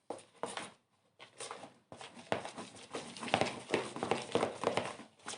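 Slime mix of glue, shaving foam and borax solution being stirred in a bowl: irregular stirring strokes that come thicker from about two seconds in, as the mix begins to gather into slime.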